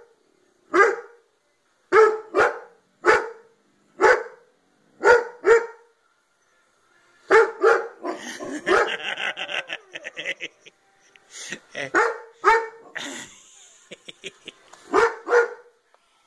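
Malamute puppy barking nervously at a Halloween skeleton dog decoration: short barks, single and in pairs, with a longer, rougher run of barking about eight to ten seconds in.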